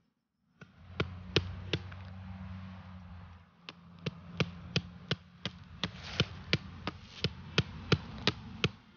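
A blade chopping in repeated sharp strikes: three quick ones near the start, then a steady run of about three a second. A steady low hum runs underneath.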